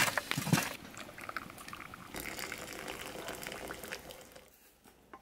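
Open wood fire crackling under a steaming pot of rosehip syrup, with a few knocks of logs being shoved into the fire in the first second. The crackling fades much quieter near the end.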